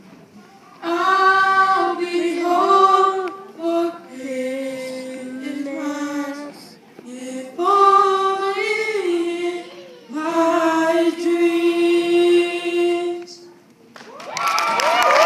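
Voices singing without instruments in several long, held phrases with short breaks between them. Near the end the singing gives way to clapping and cheering.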